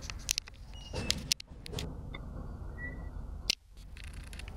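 Freight train of tank cars rolling slowly past: a steady low rumble of wheels on rail, broken by several sharp clicks and knocks.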